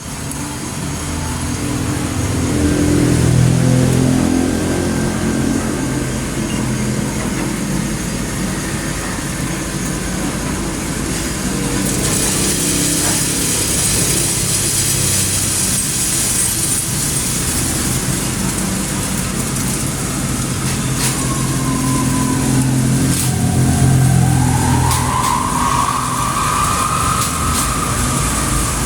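Coffee roaster machine running: a steady mechanical hum with hiss that grows louder about halfway through, a few sharp clicks, and a whine that rises in pitch near the end.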